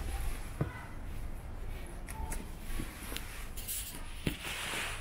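Footsteps of a person walking, a few irregular steps with a brief scuffing sound near the end, over a steady low rumble.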